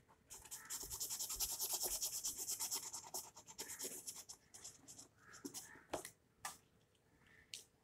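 Colouring scratching back and forth on paper: a quick, even run of strokes, several a second, for about three seconds, then a few scattered scratches and taps.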